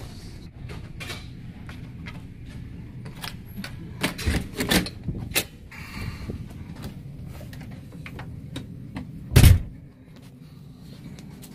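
A cabin door being handled and pushed open, with latch clicks and knocks, a cluster of louder knocks about four seconds in and a heavy thump near the end, over a ship's steady low hum.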